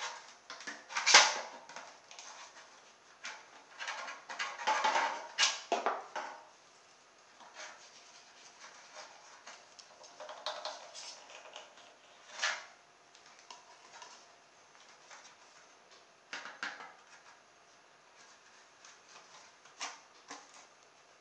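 Thin aluminium foil takeaway tray crinkling and clicking as it is handled and worked by hand, in irregular bursts. The loudest crackle comes about a second in and a cluster follows around four to six seconds in, with smaller ones later.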